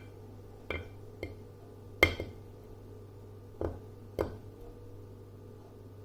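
Six sharp clicks or taps of hard objects with a slight glassy ring, irregularly spaced, the loudest about two seconds in, over a steady low hum.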